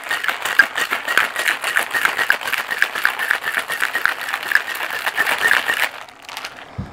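Ice rattling hard and fast inside a metal cocktail shaker as it is shaken. The shaking stops about six seconds in.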